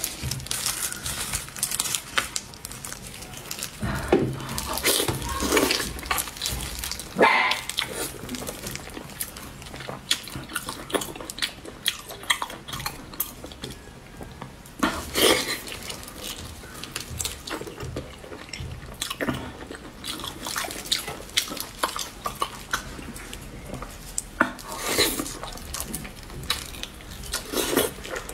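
Close-up eating sounds of a large sauce-soaked blood sausage: wet chewing, lip smacking and squelching as the casing is torn apart by hand and bitten, in irregular bursts.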